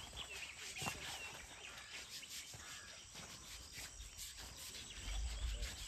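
Faint outdoor wildlife ambience of birds and insects, with a few short bird chirps in the first second. A low rumble comes in near the end.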